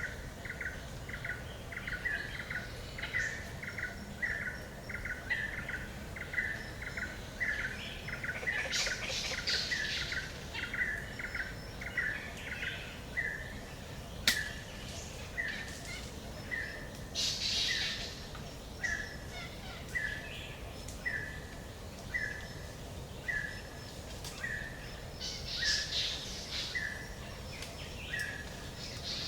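Forest ambience of birds: one call repeats steadily, about twice a second at first and slowing to about once a second, while higher bursts of song break in three times. There is a low rumble throughout, and one sharp tick about halfway.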